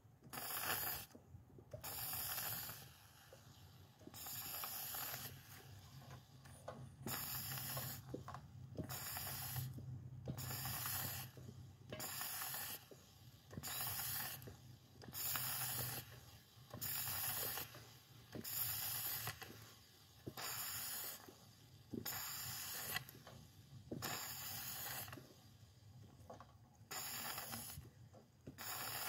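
A fluid extractor pump working in steady strokes, about one a second, each with a hissing suction sound, as it draws water-contaminated fuel out of a tank.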